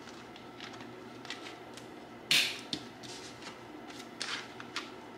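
Plastic cash envelopes being handled and pulled from a ring binder: light rustles and clicks, with one louder rustle about two seconds in and a few smaller ones near the end.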